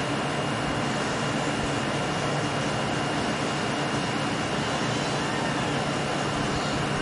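Steady mechanical hum with a hiss and a thin high tone, unchanging and without breaks.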